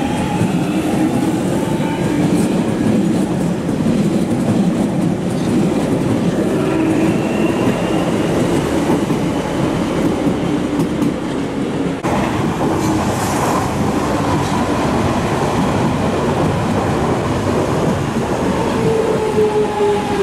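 London Underground Jubilee line 1996 Stock train running with steady wheel rumble and clatter and an electric traction-motor whine that rises in pitch as it pulls away. About twelve seconds in, a second train is heard approaching and braking into the platform, its motor whine falling in pitch near the end.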